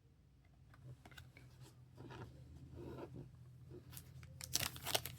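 Quiet rustles and small clicks of trading cards and pack wrappers being handled, then about four and a half seconds in a louder crinkling starts as a trading card pack wrapper is torn open.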